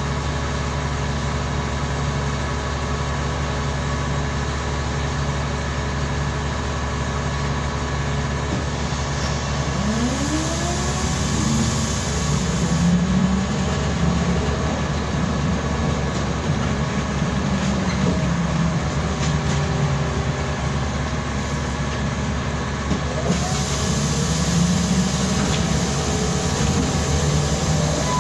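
Interior of a BKM-32102 trolleybus: a steady electric hum and low rumble, with the traction drive's whine rising in pitch as it pulls away about ten seconds in and again near the end.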